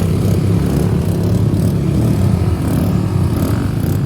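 An engine running steadily and loud.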